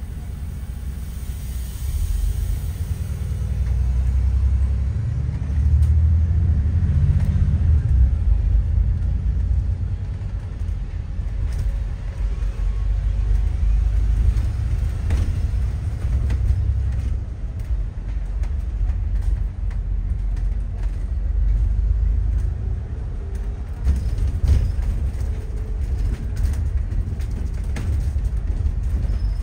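Steady low rumble of a moving bus heard from inside, its engine and tyres droning, with a few brief rattles and knocks.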